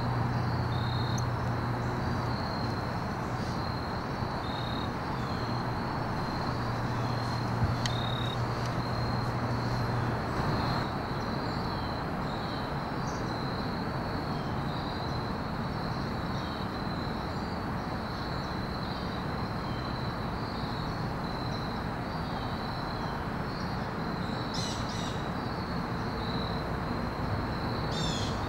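Outdoor field ambience with insects trilling steadily over a constant background rush. A low hum stops about ten seconds in, and a few short bird calls come near the end.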